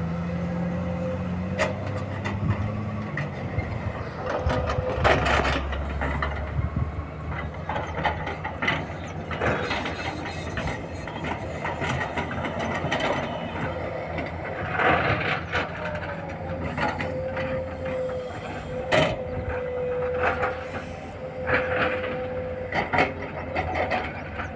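Sany SY210 excavator working: its engine runs with a steady whine over it, while irregular metallic clanks and knocks come and go.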